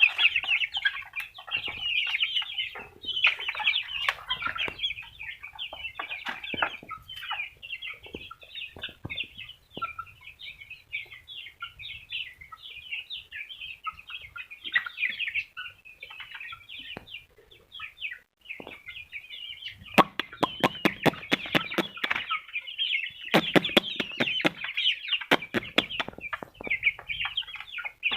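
A flock of young chicks peeping continuously in a dense chorus. Bursts of rapid sharp tapping come about two-thirds of the way in and again near the end.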